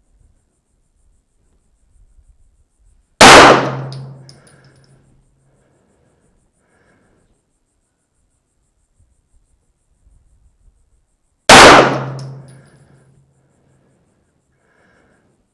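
Two 9mm pistol shots about eight seconds apart, each a sharp crack that dies away over about a second, fired slowly and aimed from a rest.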